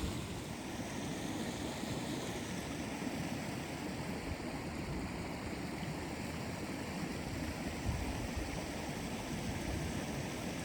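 A creek flowing, a steady rush of water.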